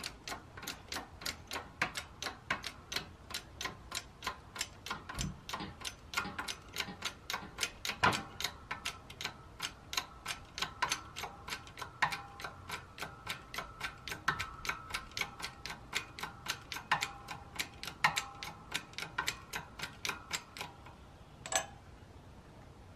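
Harbor Freight 20-ton hydraulic shop press being pumped by its hand lever while it presses a bearing out of a jackshaft: a steady, rapid clicking at about three clicks a second, with one sharper click about eight seconds in. The pumping stops near the end.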